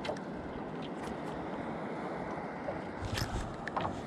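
Steady wash of water and wind against a small fishing boat, with a few sharper water slaps against the hull a little after three seconds in.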